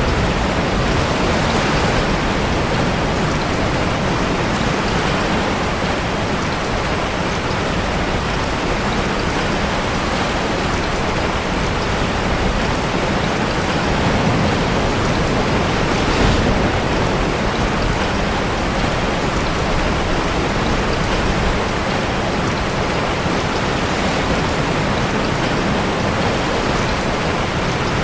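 Heavy rain and crashing sea waves blending into a steady, dense wash of noise, with a brief swell about halfway through.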